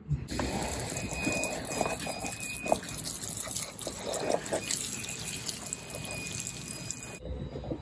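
Water trickling and dripping, most likely a freshly potted tree being watered in. It cuts off abruptly near the end.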